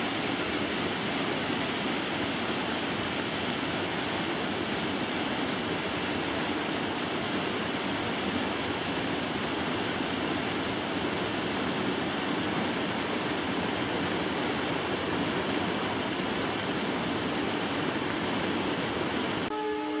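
Water rushing over rocks in a stream below a waterfall, a steady even rush. Just before the end it cuts off and a train horn starts, sounding several tones at once.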